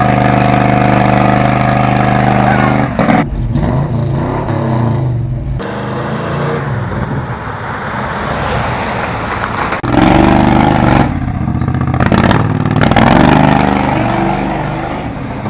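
Car engine revving loud: held steady at high revs for about three seconds, then running and revving up and down, with the sound changing abruptly a few times.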